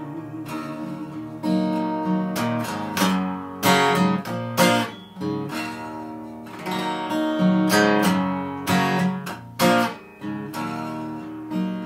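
Acoustic guitar strummed solo: ringing chords punctuated by sharp strums every half-second to second.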